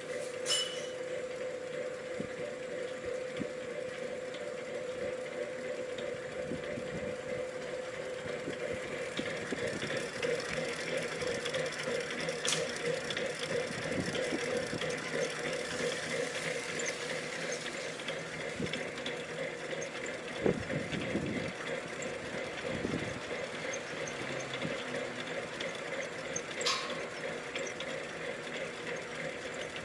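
SK Mixer SK131SX commercial dough mixer running on test, a steady mechanical whirr with a constant hum and gear noise. A few sharp clicks and a couple of dull knocks sound over it.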